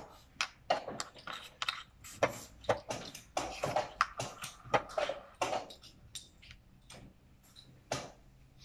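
Draughts pieces clicking and clattering on a board as a capture is played at blitz speed: a piece tapped across several squares and the taken pieces picked up, in quick irregular taps, then one more click near the end.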